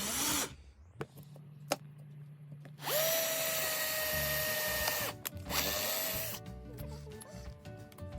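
Power drill boring holes in chipboard in separate runs: one ends just after the start, a longer steady run with a whine comes about three seconds in, and a short one follows. Background music comes in near the end.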